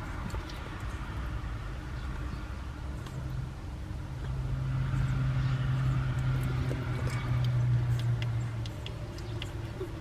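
A low steady motor hum swells over several seconds in the middle and then fades. Under it, faint soft clicks of newborn Shiba Inu puppies suckling at their mother.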